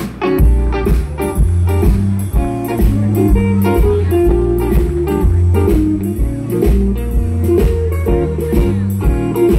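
Live electric Chicago blues band, with electric guitars, electric bass and drums, coming in about half a second in and playing the opening of a song, the bass line strong and the drums keeping a steady beat.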